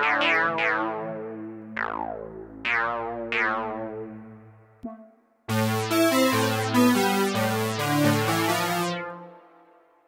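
TAL-U-NO-LX V2 software synthesizer, an emulation of the Roland Juno-60, playing a lead preset whose notes each open bright and quickly close down over a low held bass note. About five seconds in it stops with a click, and after a short pause a buzzier pulse-width (PWM) lead preset plays a melody with bass and chords, dying away near the end.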